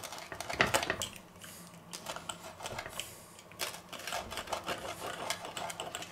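Steel pizza wheel rolling through a crisp pizza crust onto a wooden board, a quick run of irregular crunching clicks, loudest about a second in.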